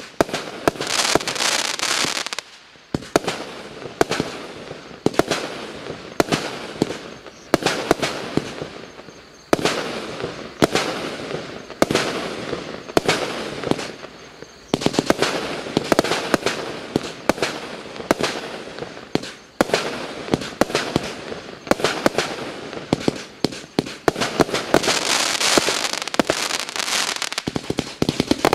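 Klasek C212MF/C Profi fireworks cake firing in rapid volleys of sharp launch reports and aerial bursts. It pauses briefly a few times, with stretches of crackling near the start and near the end.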